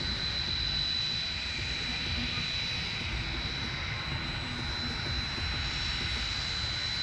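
Jet trainer's twin turbofan engines running: a steady high whine over a low rumble, with a fainter, higher tone joining about five and a half seconds in.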